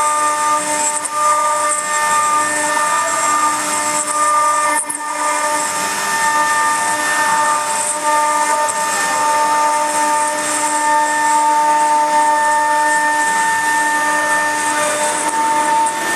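Stone CNC router spindle whining steadily as its tapered bit grinds a groove into a stone slab under a water spray, with a high hiss over the whine. The sound dips briefly about five seconds in.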